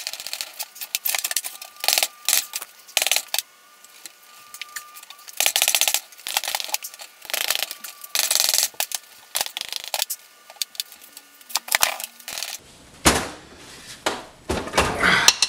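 Metal clinking and clattering in short, irregular bursts from tools and parts being worked on the bare aluminium block of a Subaru EJ255 flat-four as its case is unbolted and split. Heavier knocks come near the end.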